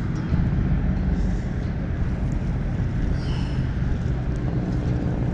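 Steady low hum of an engine running, with a low rumble of wind or traffic, and a brief faint high-pitched sound about three seconds in.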